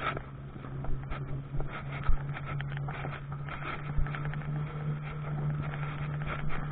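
Cabin sound of a Carver electric tilting three-wheeler on the move: a steady low hum from the drive, with scattered knocks and rustling close to the microphone and a couple of sharper thumps about two and four seconds in.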